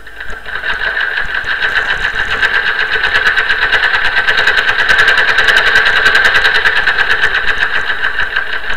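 Sewing machine running steadily at speed, a fast, even mechanical clatter that swells in the first second and then holds.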